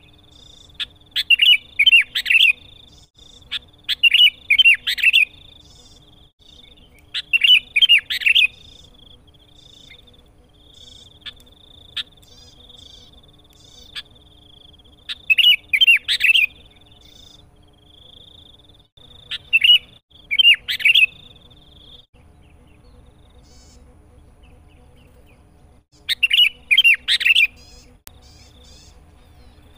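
Sooty-headed bulbul (kutilang) singing in full voice: six loud bursts of quick, bubbly notes, each a second or two long and a few seconds apart. A steady high thin whine runs beneath the song, drops out about two thirds of the way through and comes back near the end.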